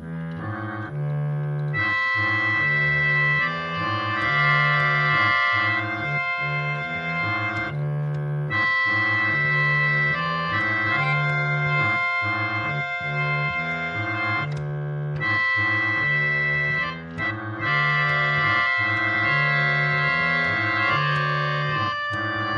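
Organ music: a bass figure repeating in a steady rhythm under long held high notes, with a brief break about two-thirds of the way through.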